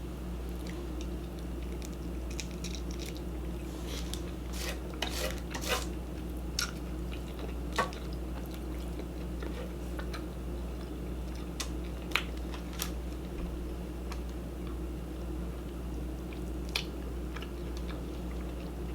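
Close-miked eating of shrimp and ramen: quiet chewing with scattered sharp mouth clicks and smacks, most of them in the middle stretch. A steady low electrical hum runs underneath.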